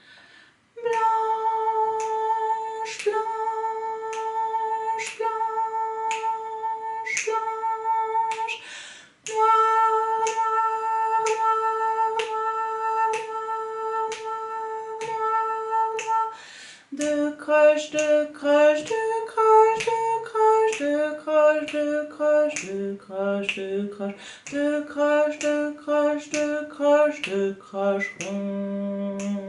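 A woman sings the rhythm names (blanche, noire, croches) of a simple melody, first on one repeated pitch, then following the melody's changing pitches from about halfway through. Finger snaps mark the beat, about one a second.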